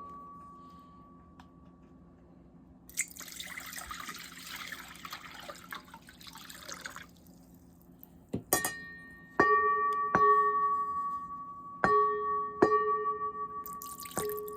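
A metal bowl's ringing fades out, then water is poured for about four seconds. After that, metal bowls holding water are struck about six times, each strike ringing on in a low and a higher tone.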